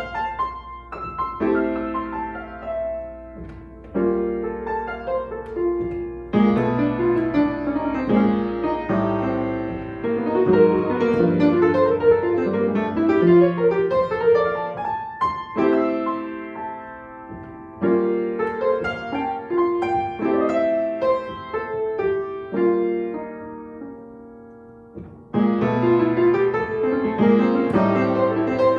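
Piano playing a Christmas arrangement in phrases that swell and fade, with loud new chords struck about six, fifteen, eighteen and twenty-five seconds in.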